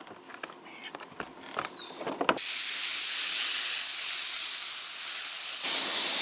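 Paint spray gun spraying: a few faint clicks and taps, then a loud steady hiss that starts abruptly about two and a half seconds in and carries on.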